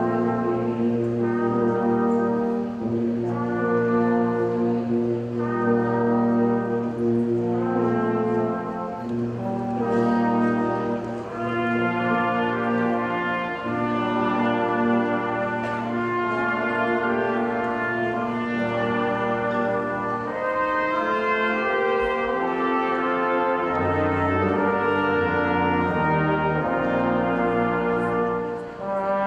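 Brass quintet playing held chords in a slow piece of holiday music, with deep bass notes joining near the end.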